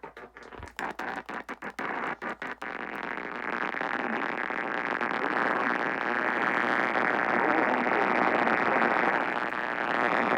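AM radio static: noise crackles and cuts in and out for the first few seconds, then settles into a steady hiss that slowly grows louder.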